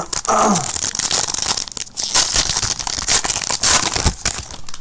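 Trading card pack wrapper being torn open and crinkled by hand, a dense run of tearing and crackling.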